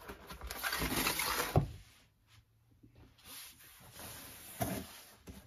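A small cardboard box being handled and moved, rustling and scraping, with a knock about a second and a half in. After a short quiet spell there is fainter handling and another knock near the end.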